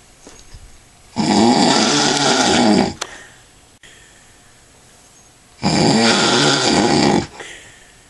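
A man snoring in his sleep after drinking a lot of alcohol: two loud, long, pitched snores about four seconds apart, each under two seconds long, with quiet breathing between.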